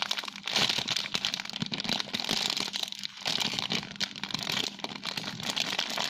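Continuous close crinkling and crackling of plastic as a sheep-shaped squishy toy is handled.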